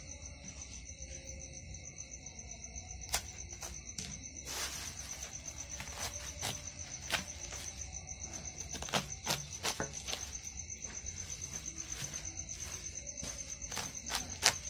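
Steady, rapidly pulsing high chirp of a night insect, such as a cricket, with scattered sharp clicks and knocks of a metal knife and scoop working raw fish flesh.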